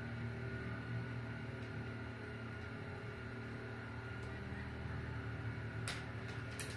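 A steady low hum with a faint thin whine above it, and two short sharp clicks near the end.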